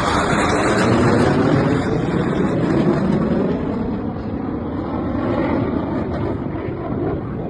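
Surya Kiran BAE Hawk jet trainers flying past, a loud, steady jet roar that sweeps in pitch as they pass and eases off slightly near the end.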